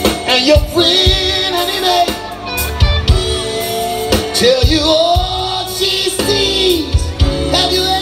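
Live band playing: a lead singer holding long, wavering melodic notes over a drum kit, electric guitar, bass and keyboard.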